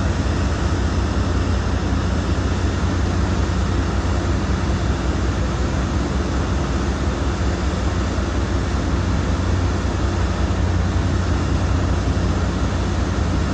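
Steady low drone of an offshore vessel's engines and machinery, with a constant rushing noise over it.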